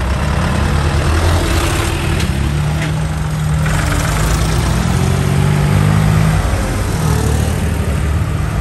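Vintage tractor engines running at low speed as several tractors drive past one after another, the engine note shifting as each one passes.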